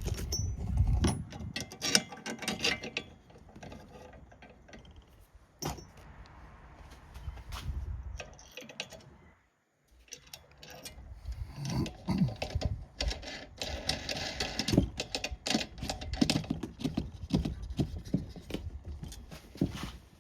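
Metal tools and hardware clinking and a ratchet wrench clicking as bolts and self-locking nuts are tightened on a steel bike rack. The sound breaks off briefly about halfway through, then resumes as dense, rapid clicking.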